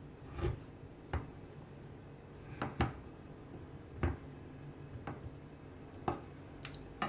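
Large kitchen knife chopping down through a block of unthawed, still-frozen pork belly and striking a wooden cutting board: about seven separate knocks, roughly one a second, two of them close together near the middle.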